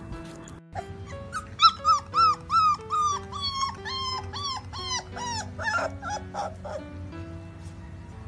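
Pit bull puppy giving a quick string of short, high, whining yips, two or three a second, that slowly drop in pitch over a few seconds. Background music plays underneath.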